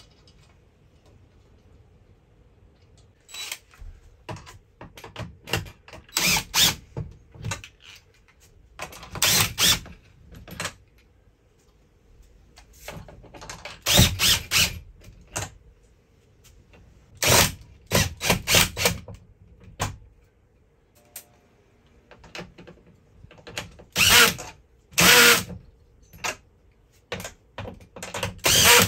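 Cordless drill/driver with a socket running nuts down onto the studs of an air-conditioner mounting plate in short bursts, several times over, with pauses between.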